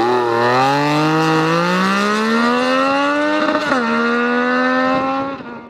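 Triumph Daytona 675 inline-triple sportbike with a Leo Vince race exhaust accelerating, its engine note climbing steadily in pitch. About three and a half seconds in there is a quick upshift, then it pulls on at a steady pitch and dies away near the end.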